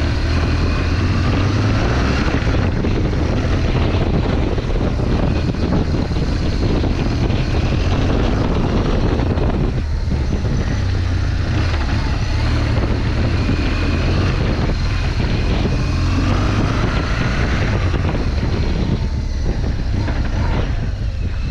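BMW R1200GS boxer-twin engine running under load as the motorcycle climbs a loose dirt track, heard from a helmet-mounted camera. The engine note rises a couple of times as it is given gas and eases off briefly around the middle.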